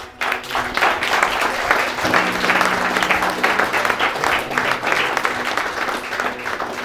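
A room of guests applauding, the clapping starting suddenly and thinning out near the end.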